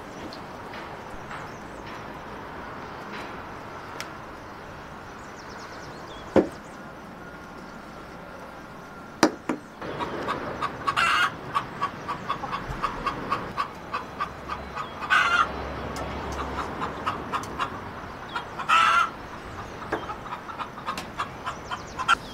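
Chickens clucking: a rapid run of short clucks starting about ten seconds in, broken three times by a louder, longer call. Two sharp knocks come before it.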